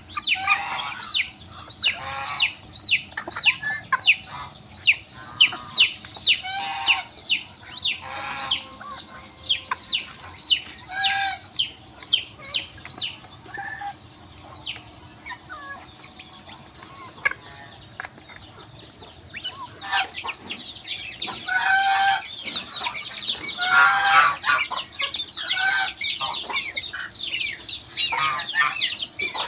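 A feeding poultry flock calling: a steady run of high, falling peeps from young poultry, with lower clucking calls among them. The peeping thins out in the middle and grows busier again in the last third.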